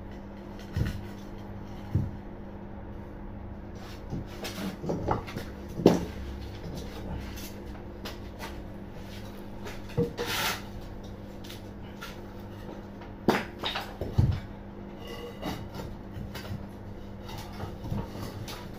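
Scattered knocks, clunks and scrapes of a steel angle beam being pushed and worked into a slot in a brick wall, loudest about six seconds in and again around thirteen to fourteen seconds, over a steady low hum.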